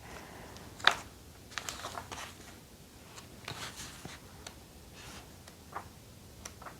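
Paper pages of a notebook insert being turned and handled: a sharp paper snap about a second in, then softer rustles and light taps.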